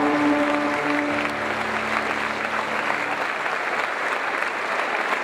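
Audience applauding while the accompanying piano's final chord rings on, the chord dying away about three seconds in and leaving only the clapping.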